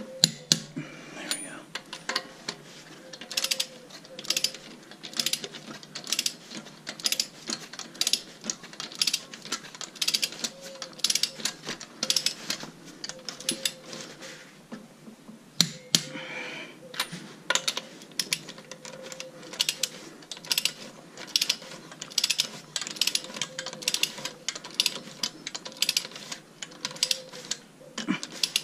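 Torque wrench ratcheting in repeated runs of sharp clicks as wheel lug nuts are tightened.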